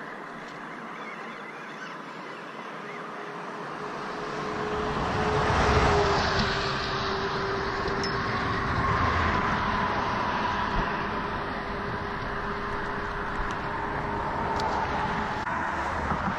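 Road traffic crossing the bridge: tyre and engine noise swells about five seconds in and then carries on as a steady hum.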